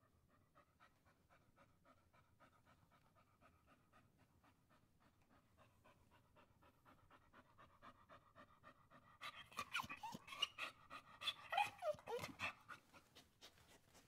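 A dog panting quickly and evenly. The panting grows louder about nine seconds in, with a few short whines mixed in, then eases off near the end.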